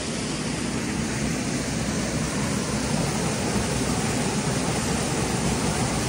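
Waterfall rushing over rock into a pool close below, a steady, loud, unbroken noise of falling water.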